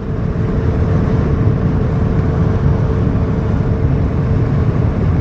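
Car interior road noise while driving: a steady low rumble of tyres and engine, with a faint steady hum that fades out about four seconds in.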